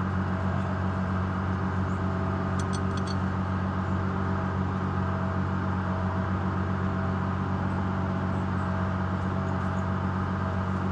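An engine running steadily at a constant speed, with a few faint light clicks about two and a half to three seconds in.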